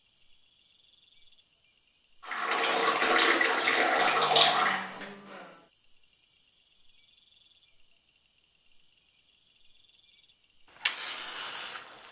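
Water rushing from a bathroom tap or toilet for about three seconds, dying away. Near the end, a sudden scrape and flare as a match is struck to light a candle.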